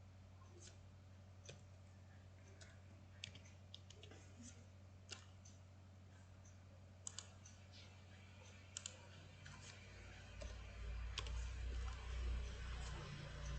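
Scattered sharp clicks of a computer mouse and keyboard over a steady low hum, with a louder low rumble in the last few seconds.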